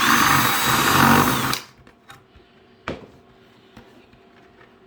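Power drill running for about a second and a half, wallowing out a drilled hole in a 5-gallon bucket to enlarge it slightly, then stopping. A single sharp knock follows a little later.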